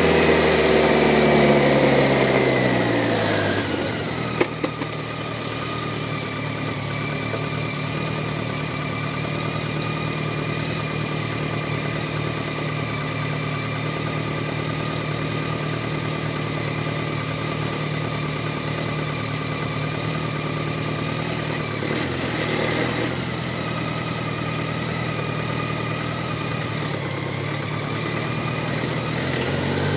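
BMW K1100LT motorcycle's inline-four engine winding down in pitch over the first few seconds, then idling steadily while stopped in a traffic queue. Near the end the engine note rises as the bike pulls away.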